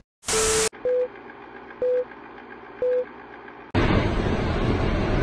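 Short burst of TV-static hiss with a tone under it, then three short electronic beeps one second apart: a channel-change transition effect. About 3.7 seconds in, a loud steady rushing noise begins, from footage of a massive landslide.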